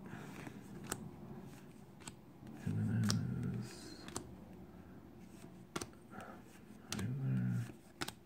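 Paper baseball trading cards being flipped one at a time off the top of a stack by hand, each card giving a light snap or click, roughly one a second. A low voice murmurs briefly twice, around three seconds in and near the end.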